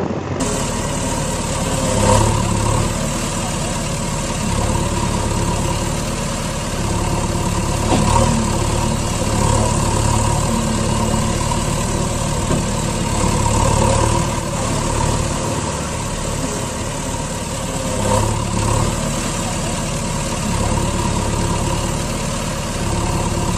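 Heavy truck engine idling steadily, swelling a little every few seconds, the looped engine sound effect typical of dubbed toy-vehicle videos.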